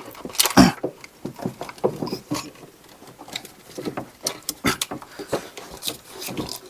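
Irregular clunks, taps and scrapes of a power steering pump being worked back into its mount in a Toyota FJ Cruiser's cramped engine bay, metal knocking against surrounding parts, with the loudest knock about half a second in.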